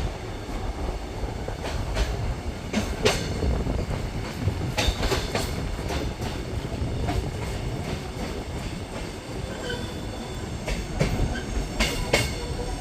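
Passenger train running along the rails, heard from on board: a steady low rumble with sharp metallic clacks and brief high wheel squeals, clustered about 3 seconds in, around 5 seconds and again near the end.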